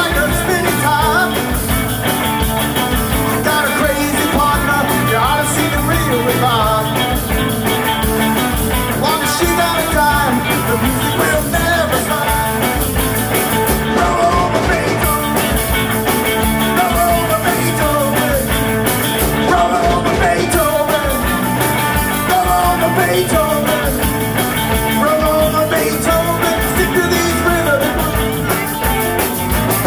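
A live rock band playing an up-tempo rock and roll number on electric guitars, bass guitar and drums.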